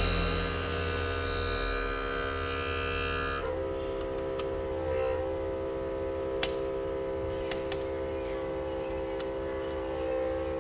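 Steady held tones that change once, about three and a half seconds in, with a few faint crackles as plastic polarizer film is peeled off an LCD panel.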